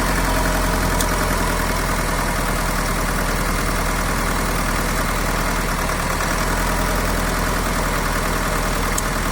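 Tata Altroz four-cylinder diesel engine idling steadily while missing. The number 4 injector is not working, so that cylinder is dead.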